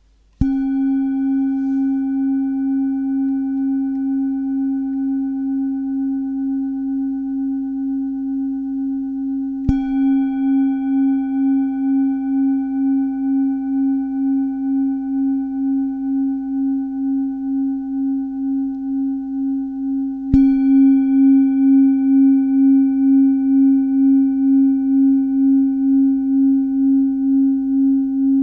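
A metal singing bowl tuned to the OM year tone (Jahreston OM) is struck three times, about ten seconds apart. Each strike sets it ringing with a strong low hum and several fainter higher overtones, pulsing slowly in a steady wobble, and each new strike comes before the last ring has died away.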